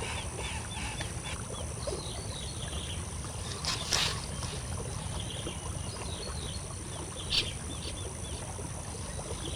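A bird calling in runs of short chirps, about three a second, over a steady outdoor background with a constant high hiss. Two brief louder rustles come about four and seven seconds in.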